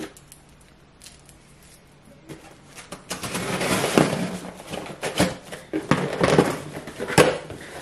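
Cardboard shipping box being opened by hand: packing tape tearing and cardboard flaps rustling and scraping, with a few sharp cracks. It starts a couple of seconds in after a quiet stretch.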